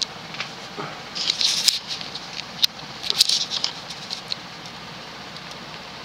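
Evergo 36-inch industrial ceiling fan with stamped steel blades running on high speed, a steady rush of moving air. Two short spells of light, irregular clicking come through, about a second in and again around three seconds.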